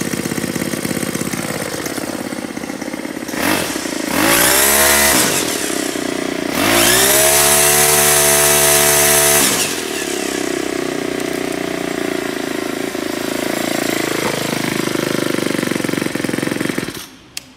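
Ryobi four-stroke string trimmer engine running at idle, revved up twice, the second time held for about three seconds before dropping back, then cut off shortly before the end.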